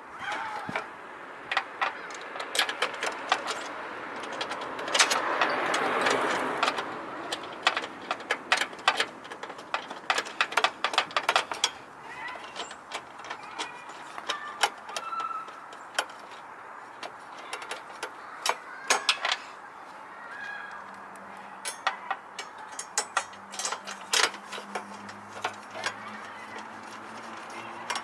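Irregular clicks and knocks of car headlight parts being handled and fitted, with a louder rustling swell about five seconds in.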